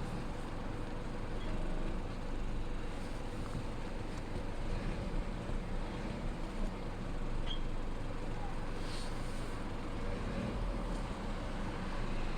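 Geely Coolray crossover driving, a steady road and running noise with a faint steady hum. At 50,000 km the car has developed an unfamiliar noise from the rear.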